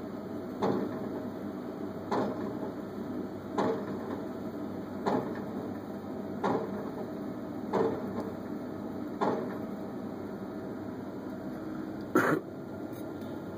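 Komatsu PC78MR-6 midi excavator's diesel engine running steadily, with a short clunk repeating about every second and a half and a louder knock near the end.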